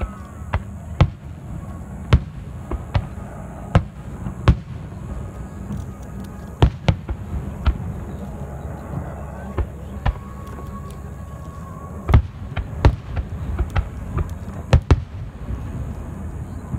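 Aerial firework shells bursting overhead: a run of sharp bangs, often one to two a second, with a lull in the middle, over a steady low rumble.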